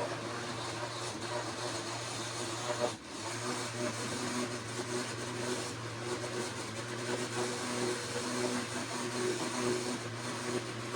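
Screw-lid cup blender running steadily as it blends a smoothie. The motor cuts out for a moment about three seconds in and starts again.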